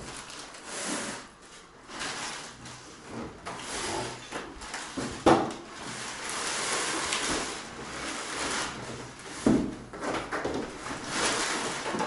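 A built-in dishwasher being handled and shifted off its packaging base, with plastic wrapping rustling and the metal casing scraping. Two sharp knocks come through, a little under halfway and again about three-quarters of the way in.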